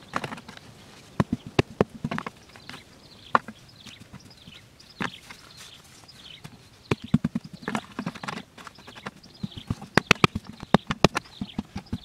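Hands patting, pressing and scraping dry sandy soil around upturned plastic bottles, a run of short sharp taps and scrapes that come thick and fast about seven and ten seconds in.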